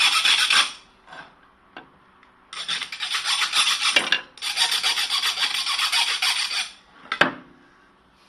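Hand file rasping on the metal jaw piece of a welding electrode holder, in three runs of quick strokes with short pauses, to clean it so the electrode makes proper contact. A single sharp click comes about seven seconds in.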